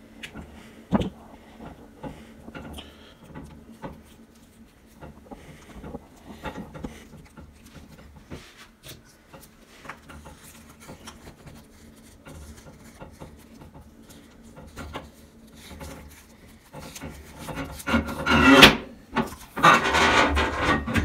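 Hands handling a metal shower hose and its threaded end fittings: scattered small clicks and scrapes, then louder rubbing and handling noise for the last few seconds.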